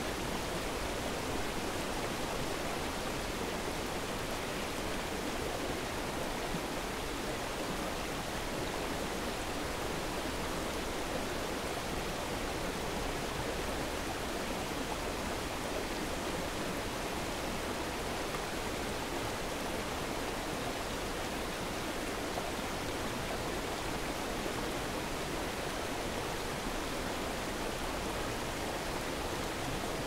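Steady, even rush of a waterfall and stream.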